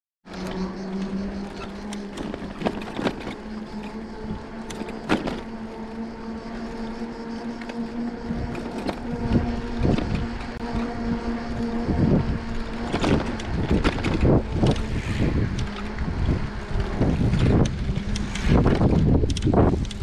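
Bicycle riding along a paved path: a steady low hum with overtones runs until near the end, with frequent short knocks, and wind buffeting on the microphone grows stronger from about eight seconds in.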